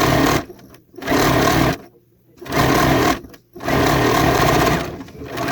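Older-model electric sewing machine stitching shirring rows, with elastic thread in the bobbin. It runs in four short start-stop bursts of about a second each, with brief pauses between them, then runs more quietly near the end.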